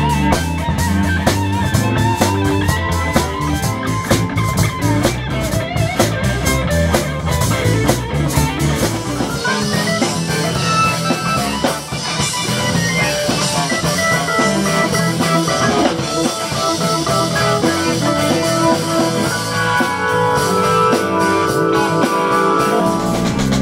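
A rock band playing, with electric guitar over a drum kit. The deep low end drops away for a stretch in the middle while held, steady notes carry on above.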